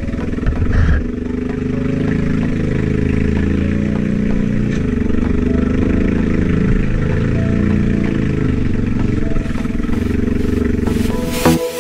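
Quad bike (ATV) engine running on a dirt trail, its pitch rising and falling as the throttle opens and closes. Music cuts in near the end.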